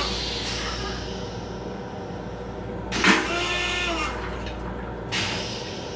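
Metro-North M7 electric railcar running, heard from inside its small restroom: a steady low rumble, with a sudden loud hiss and whine about three seconds in and a shorter hiss near the end.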